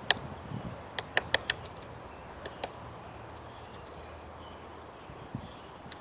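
Tufted titmouse pecking at seed on a wooden platform feeder: sharp taps, one at the start, a quick run of four about a second in, and two more about two and a half seconds in.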